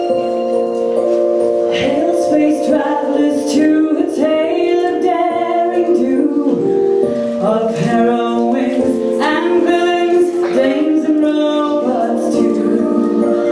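A song: female singing voices over backing music.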